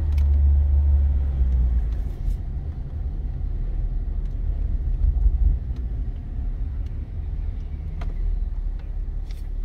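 Low, steady rumble of a Hyundai Veracruz SUV rolling slowly in low gear, heard from inside the cabin: engine and tyre noise, loudest in the first two seconds.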